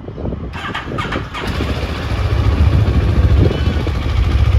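A CF Moto 650MT's parallel-twin engine is started. It catches about a second and a half in and runs with a loud, steady, pulsing exhaust beat.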